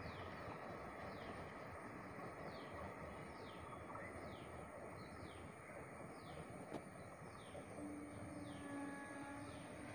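A bird repeating a short falling chirp about once every 0.7 seconds, over the faint low rumble of a passenger train running away into the distance. Near the end a held tone with overtones sounds briefly.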